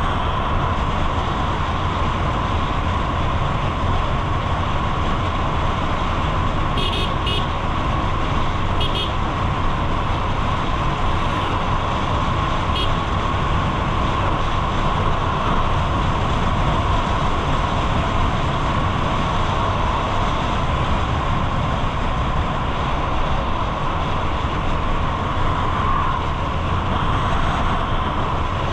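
Steady road traffic noise, with a few short vehicle horn toots in the first half.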